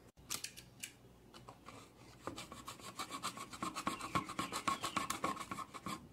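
A box cutter sawing through a thin PET plastic bottle in quick back-and-forth strokes, a rapid rasping that starts about two seconds in and grows louder, after a few light handling clicks. The blade is blunt, so it has to saw rather than slice.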